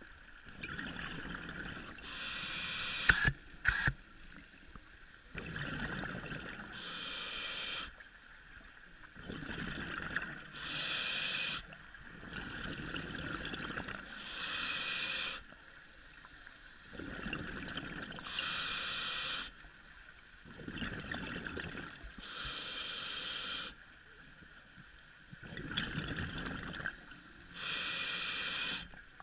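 Scuba diver breathing through a regulator underwater, about one breath every four seconds. Each breath is a hissing inhale followed by a lower gurgle of exhaled bubbles.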